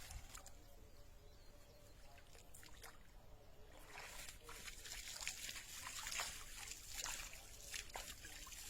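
Faint trickling and sloshing of water, with a run of small splashes from about four seconds in.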